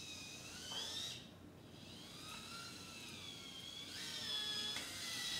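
Hobby servo motors in a 3D-printed robot arm whining as they drive the joints, the pitch sliding up and down over several runs with a short break about a second in. The builder takes one of these servos to be giving problems.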